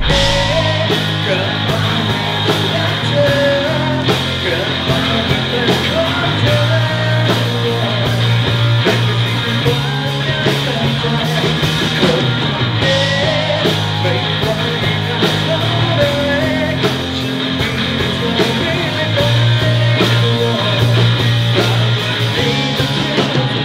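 Live rock band performance: a male singer sings into a microphone over drums and backing instruments.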